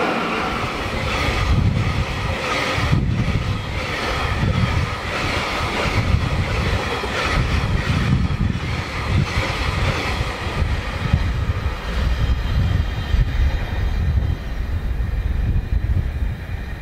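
Freight train of Taki tank wagons rolling past close by: a heavy low rumble with repeated clacking of wheels over rail joints. The higher clatter fades over the last few seconds as the end of the train goes by, leaving the low rumble.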